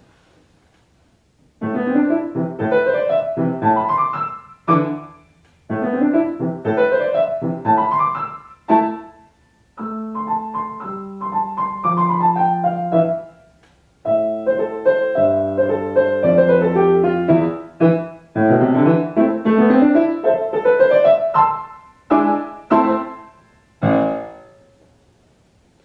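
A grand piano plays a short beginner piece in a minor key, starting about a second and a half in. It opens with rising five-finger patterns, each phrase ending on a short staccato note, followed by a passage of held chords under a falling melody. The rising patterns then return, and the piece ends on a few detached notes.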